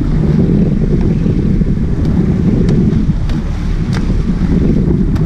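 Wind buffeting the microphone on a sport-fishing boat at sea, with water sloshing along the hull and a few faint ticks.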